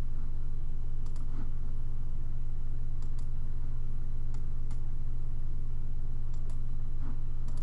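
Scattered single computer mouse clicks, about nine in all, over a steady low electrical hum. The hum is the loudest thing throughout.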